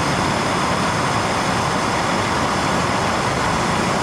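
Handheld gas torch burning with a loud, steady hiss of flame while it heats a steel bracket for brazing.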